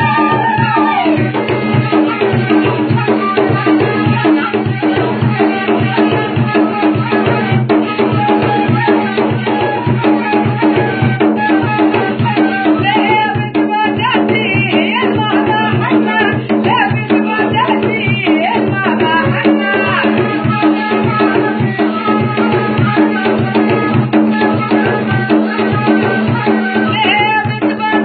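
North African folk music: a gasba reed flute melody over fast, steady hand percussion with a rattle, and a low note held underneath.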